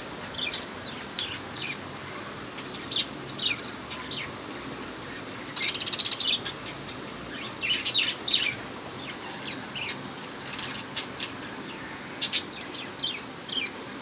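Pet budgerigars chirping in short, high calls scattered throughout, with denser flurries around six and eight seconds in.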